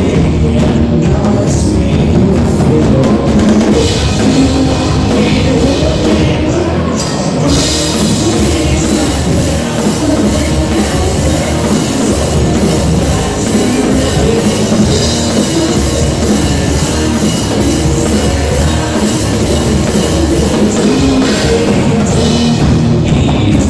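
Live rock band playing loud, with a drum kit driving the beat; the cymbals come in heavily about seven seconds in and drop back near the end.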